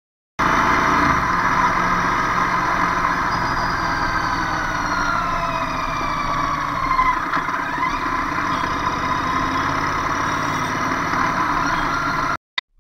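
Traffic on a congested road: vehicle engines running in a steady, dense mix, with a few tones sliding down in pitch around the middle. It starts suddenly after a brief silence and cuts off just before the end.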